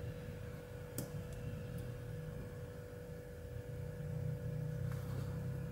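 Circlip pliers working at the retaining circlip of a brass lock cylinder: one sharp click about a second in and a few fainter ticks, over a steady low hum.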